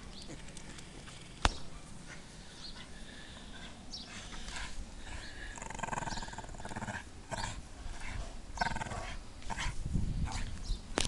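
Staffordshire bull terrier growling and vocalising in play while tugging on a rope toy, in short bursts that grow louder from about four seconds in. A single sharp click about a second and a half in.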